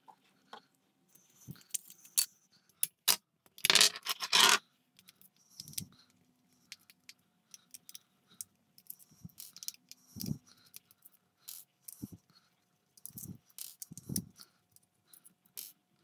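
Small screws being backed out of a handheld recorder's plastic case with a precision screwdriver: scattered clicks, taps and scrapes, with small screws set down on a wooden table. The loudest sound is a scraping rattle about four seconds in.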